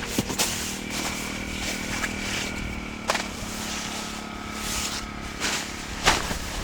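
Small fishing boat's engine running steadily, its pitch shifting about halfway through, with several sharp clicks or knocks over it.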